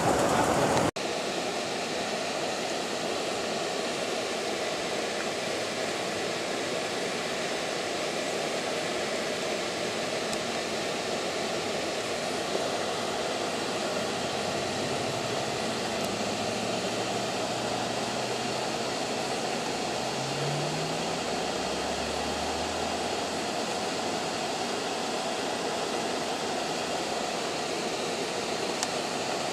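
Steady engine and road noise inside a moving vehicle, dropping abruptly about a second in, with a low engine hum rising briefly about twenty seconds in.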